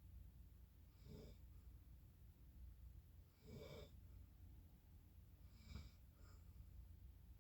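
Faint snoring: three short breath sounds about two and a half seconds apart, over a low steady hum.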